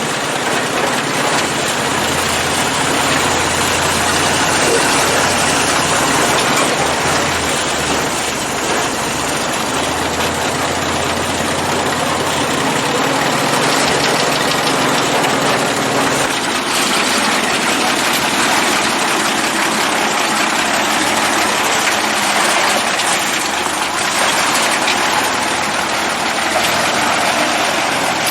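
ZIL-164 Soviet truck's 5.5-litre side-valve six-cylinder petrol engine running steadily. Its deep low hum falls away about sixteen seconds in, and the engine note changes.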